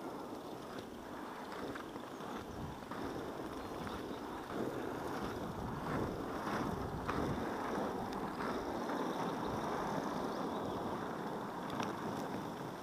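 Inline skate wheels rolling over rough asphalt: a steady gritty rumble that grows louder about four and a half seconds in, with wind on the microphone and a few light clicks.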